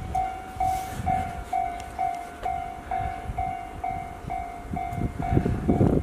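Japanese railway level-crossing warning bell ringing a steady electronic 'kan-kan', about two strikes a second, signalling an approaching train. Near the end the rumble of the JR Obama Line train coming through rises under it.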